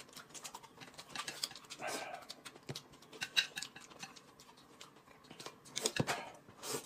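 Quiet eating sounds at a table: chewing and small chopstick clicks and taps, with a small ring-pull tin being opened in the first few seconds. A sharper tap about six seconds in.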